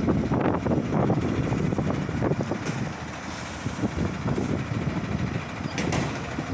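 Kamaz fire engine's diesel engine running as the truck pulls out, with a short hiss of air from its air brakes about halfway through.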